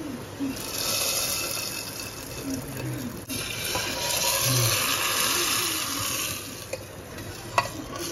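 Hot tempering oil with dried red chillies and spices sizzling as it is poured into cooked dal, a loud hiss that breaks off briefly about three seconds in, then picks up again as the hot tempering pan is dipped into the dal. A sharp metal click near the end.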